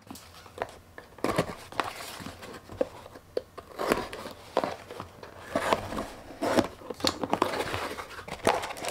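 Small cardboard shipping box being opened by hand: a blade drawn along the taped seam, then the flaps scraped and pulled open, with rustling and light clicks and knocks of cardboard.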